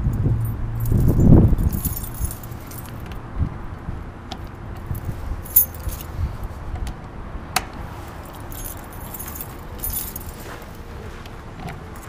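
A key ring jangling as keys are sorted in the hand, with scattered light metallic clinks, and a brief low rumble about a second in.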